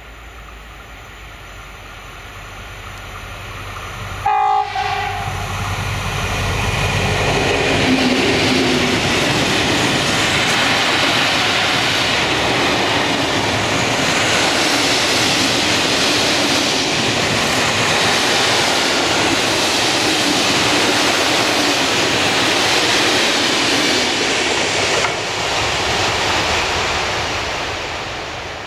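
HŽ series 2062 diesel locomotive sounds a short horn blast about four seconds in, then passes close with its engine running. A long string of open freight wagons follows, rolling by with steady wheel noise and rail clatter that fades near the end.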